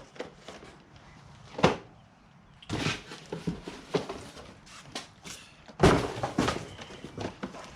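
Handling a boxed brake cable and its packaging: a few sharp thunks and knocks, the loudest about six seconds in, with rustling and small clatter between.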